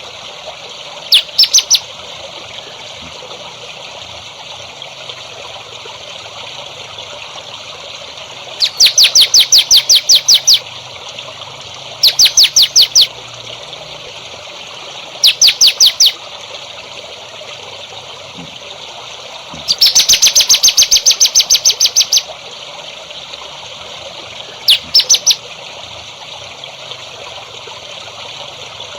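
A songbird calling in six bursts of fast, evenly repeated high chirps, the longest lasting about two seconds, over the steady sound of trickling water.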